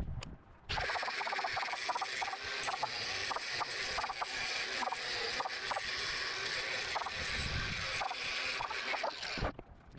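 A handheld power tool running against ABS plastic wheel-well liner material, in a steady rasping run with scattered clicks. It starts abruptly just under a second in and cuts off near the end.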